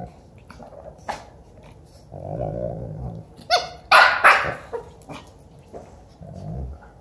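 Two dogs play-fighting: a low growl, then three sharp barks in quick succession about halfway through, and another short growl near the end.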